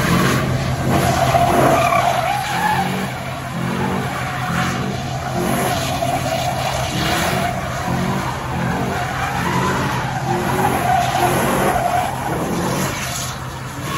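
Pickup truck doing donuts: tyres squealing continuously as they spin, over the engine revving up and dropping again and again.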